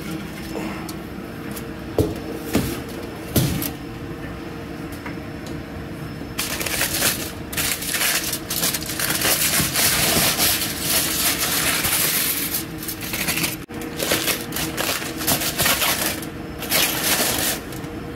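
Metal baking tins knock a few times as they are pulled from the oven. Then, from about six seconds in, aluminium foil crinkles loudly and irregularly as it is peeled off the tins, over a steady hum.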